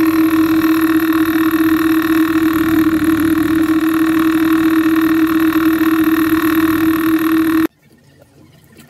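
Bench drill press running a sanding drum, a steady, loud hum that holds one pitch. It cuts off suddenly a little before the end.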